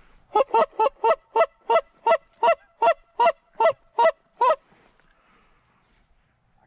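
A rapid, evenly spaced series of about a dozen short goose honks, roughly three a second, lasting about four seconds.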